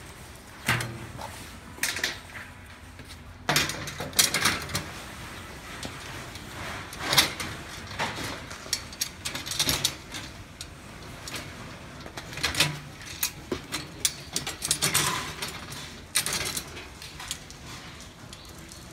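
Wheelbarrow parts and hand tools being handled: irregular clinks, knocks and short clattering runs as pieces are fitted together.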